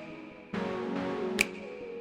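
Electronic outro music: sustained synth chords with a sharp snap-like hit about a second and a half in.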